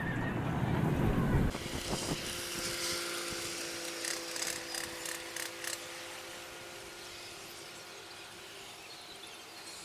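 Steel roller coaster train rumbling along its track, cut off abruptly about a second and a half in. After that comes a quieter steady hum with a few faint clicks, fading slowly.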